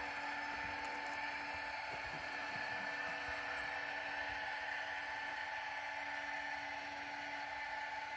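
Mighty Mule 660 gate opener's electric actuator arm running with a steady whine as it swings a steel tube gate closed.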